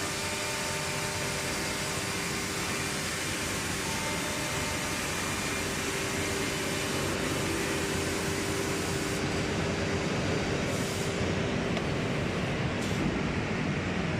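Six-sided CNC drilling and milling machine running: a steady hiss of machine noise with a steady tone running through it. The tone and the highest hiss fade about two-thirds of the way in.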